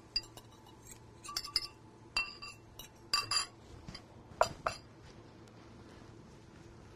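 Light, ringing clinks of a spatula tapping and scraping against the jug of beaten eggs as it is emptied into the pan. They come in small clusters and stop a little past halfway.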